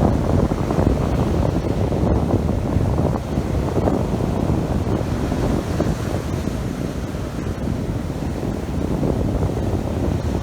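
Strong wind buffeting the microphone in a constant low rumble, over the wash of big sea waves.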